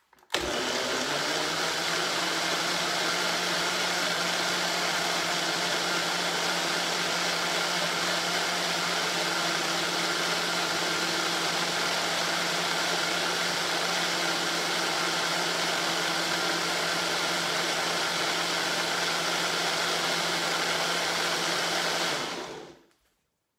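Low-powered countertop blender with a flat blade running steadily, puréeing a tahini dressing with ginger, with a steady hum under the noise. It starts abruptly, runs for about 22 seconds, then winds down and stops near the end.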